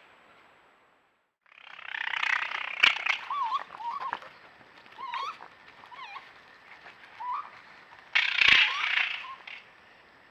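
Wild animals in a fight: two bursts of harsh screeching, one starting about a second and a half in and one near the end, with short wavering calls between them.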